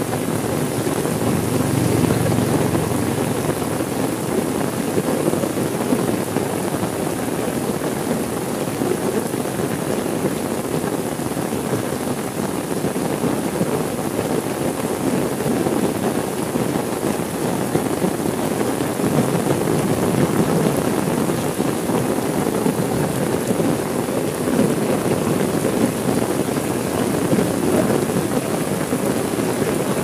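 Heavy rain falling steadily, a dense even patter without breaks or separate strikes.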